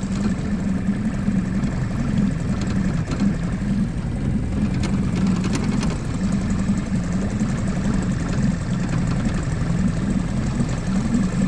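Small boat's outboard motor running steadily at slow trolling speed.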